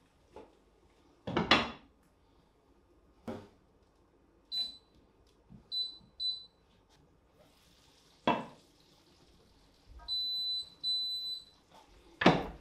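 Induction hob's touch controls beeping as a finger presses them: three short high beeps about five seconds in, and two longer beeps a few seconds later. Between them come clunks of cookware, the loudest about a second and a half in and another near the end as the pan is set down on a wooden board.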